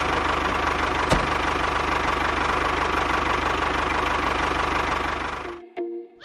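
A small motor running steadily with a fast, even pulse, then cutting off about five and a half seconds in.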